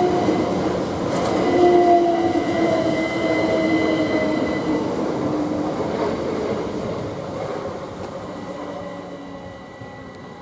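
Class 387 electric multiple unit slowing to a stop at the platform: the whine of its traction motors and brakes falls in pitch, with a thin high steady tone, and the sound fades away toward the end.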